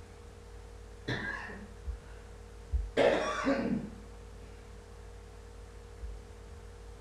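A person coughing twice: a short cough about a second in, then a longer, louder one about three seconds in. A faint steady hum runs underneath.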